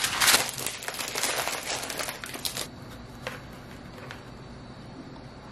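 Aluminium foil crinkling as it is pulled off a serving tray: a dense crackle for about two and a half seconds, then a single light tap.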